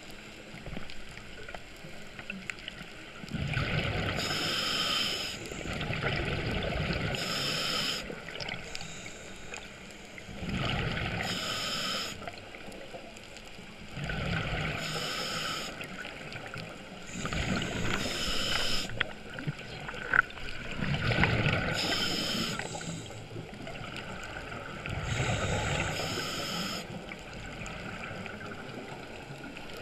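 Scuba regulator breathing underwater: a hissing inhalation, then a bubbling, rumbling exhalation, repeated every few seconds.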